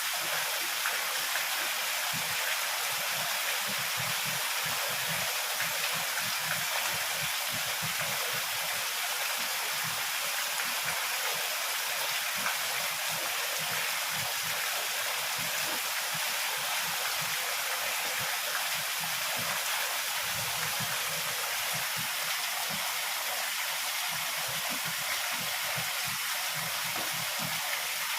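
Heavy rain falling in a steady, dense hiss, with irregular faint low rumbles underneath.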